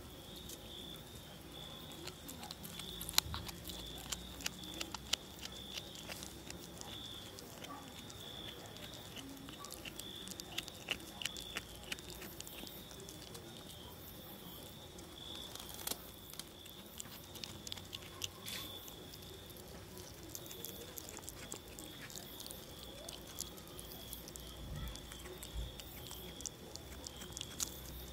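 Kitten chewing and crunching a mouse: irregular sharp crunching clicks that come in clusters. A steady high insect trill runs behind it.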